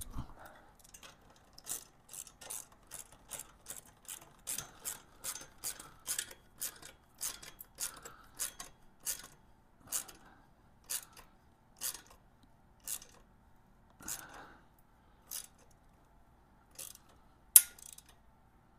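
Hand ratchet wrench clicking as an exhaust pipe clamp bolt is tightened, about three clicks a second at first, slowing to about one a second as the bolt tightens, with one louder click near the end.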